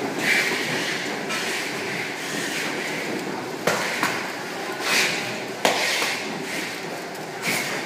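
Conveyor checkweigher for bottles running: steady clattering belt-and-roller noise with swells of hiss, and two sharp clacks, one about halfway through and a louder one about two seconds later, as plastic bottles pass through.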